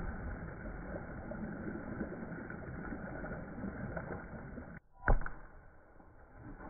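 Slowed-down, deep-sounding splashing and churning of pool water as a sling lounge chair lands in a swimming pool and the water settles around it. Near five seconds in it breaks off, and a sudden splash follows as an object plunges into the pool.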